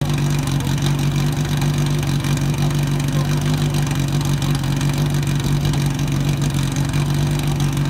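Portable fire pump's engine running steadily at a constant speed, a low, even drone with no change in pitch.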